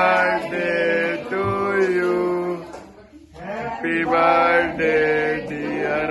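A man's voice singing slow, drawn-out notes in a chant-like style. It breaks off briefly about three seconds in, then goes on.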